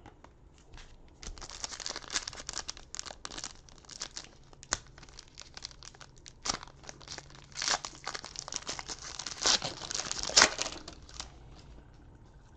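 Trading-card pack wrapper crinkling and tearing as a pack of 2017 Chronicles baseball cards is opened and the cards are pulled out. It is a dense, uneven run of crackles, loudest near the end.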